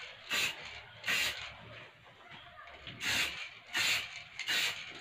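Aerosol spray paint can sprayed in five short hissing bursts onto a plastic scooter fender. There are two bursts in the first second or so, a pause, then three more in quick succession.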